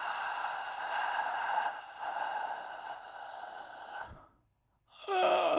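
A person's long, breathy exhale lasting about four seconds, then a short break and a voiced groan near the end.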